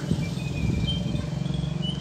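Small birds chirping over a steady low rumble, with a few knocks in the first second.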